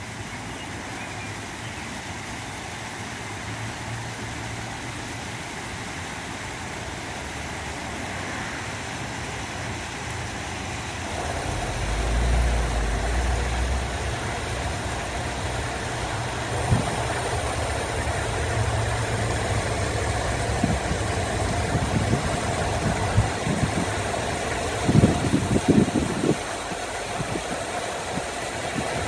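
Steady rush of water spilling down small rock cascades into a pond, over a low steady rumble. A few low thumps come near the end.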